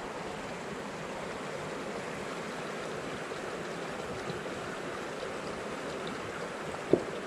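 A shallow, rocky trout creek running over stones, a steady rushing wash of water. One brief knock sounds near the end.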